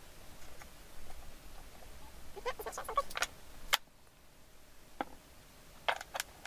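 Small wooden blocks and a plastic glue bottle handled on a 6 mm MDF panel: a quick cluster of light knocks and clicks about two and a half seconds in, then single taps near five and six seconds as blocks are set against a spacing jig.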